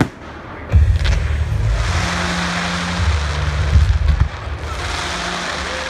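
Fireworks: a sharp bang at the start and another just under a second in, then a long stretch of dense crackling over a low rumble.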